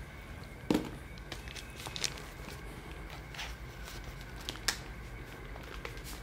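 Faint handling sounds of a paperback textbook being leafed through: paper rustling with scattered light clicks and a few soft knocks.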